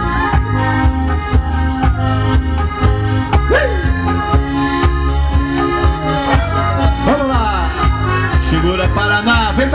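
Electronic keyboard playing an instrumental break of a Latin American song over a steady beat and heavy bass, amplified through PA speakers.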